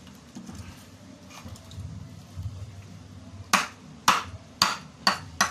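Knife chopping through fish onto a cutting board: five sharp chops about half a second apart, starting about three and a half seconds in.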